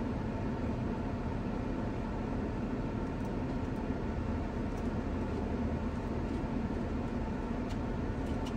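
2022 Toyota RAV4's 2.5-litre four-cylinder engine idling steadily in Park, heard from inside the cabin. A few faint clicks sound over it.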